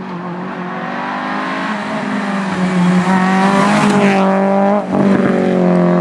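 Renault Clio rally car approaching and passing close at speed on high revs, its engine note growing louder. The pitch drops as the car goes by about four seconds in. There is a brief break in the engine sound just before five seconds, then it carries on steadily as the car pulls away.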